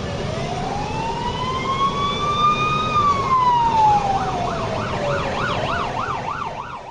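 Emergency vehicle siren in a slow wail, rising over about three seconds and falling over the next two, then switching to a fast yelp for the last second and a half, over the low rumble of the vehicle and traffic. It cuts off abruptly at the end.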